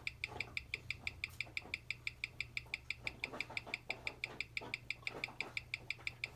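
A replacement automatic watch movement (hand-winding, hacking) in a Seiko SKX007, ticking at 21,600 beats per hour as picked up by a timing machine's microphone: about six crisp, evenly spaced ticks a second. The movement is settling in and running well, a few seconds a day fast.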